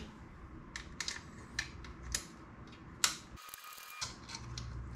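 Scattered short, sharp clicks and ticks of hand work as fasteners are undone and a motorcycle's side cover is worked loose.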